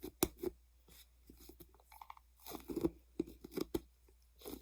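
A large fidget toy being squeezed and handled close to the microphone: irregular crackling and crunching noises.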